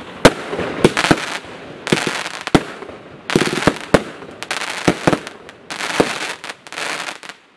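Total FX 'Caged Tiger Unleashed' fireworks going off: a run of sharp bangs from bursting shots, mixed with stretches of hissing crackle. It stops abruptly near the end.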